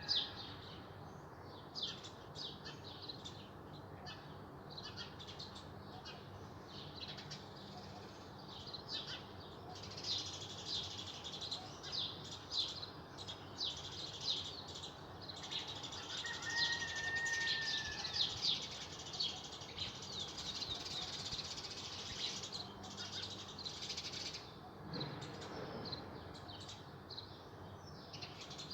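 Small songbirds chirping and twittering in a busy chorus of quick high notes, thickest in the middle stretch. About two-thirds of the way through, one bird holds a clear whistled note for about a second.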